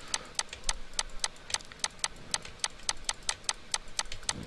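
Steady, rapid, even ticking, about four or five sharp ticks a second.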